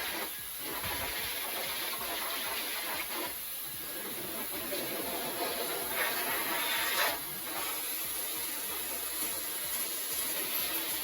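Handheld electric air duster blowing dust out of a desktop PC, a steady hiss of rushing air. About six seconds in it gets louder for about a second, then settles back.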